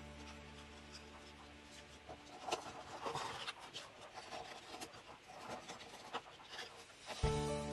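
Sheets of paper rustling and rubbing as they are handled, with short scraping clicks from scissors cutting paper. Background music fades out at the start and comes back in about seven seconds in.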